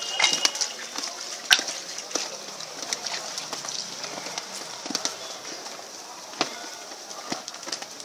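Large thin sheet of chapati dough stretched and flapped between the hands, with a few sharp slaps, over a steady outdoor hiss.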